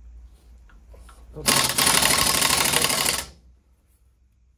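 Power tool with a rapid rattle, run in one burst of about two seconds starting about a second and a half in and then stopping, turning a hex bit that drives a homemade coil-spring compressor. A few faint knocks come before it.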